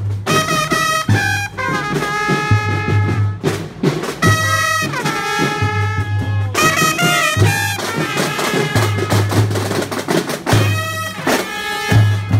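A drum and bugle corps horn line playing a tune together in sustained brass notes, with several phrases ending in a downward slide, over a pulsing low bass line.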